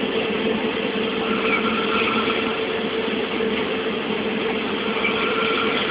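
A person snoring.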